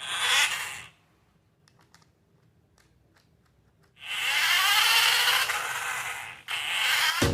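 Scraping noises: a short burst at the start, a few faint clicks, then a longer rough scrape of about two and a half seconds and a brief one just after.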